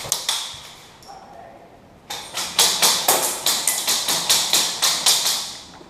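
Airsoft electric guns (AEGs) firing: a couple of sharp shots right at the start, then from about two seconds in a fast run of about fifteen sharp cracks, about four to five a second, that stops near the end.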